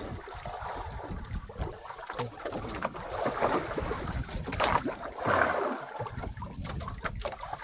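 Wind and sea noise around a small fishing boat at sea, with a steady low rumble and scattered knocks and clatter aboard.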